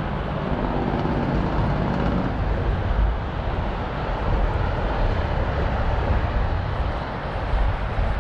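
A motor vehicle's engine running as it goes by, with a low rumble. Its engine tone is clearest in the first two seconds, then fades into broad traffic-like noise.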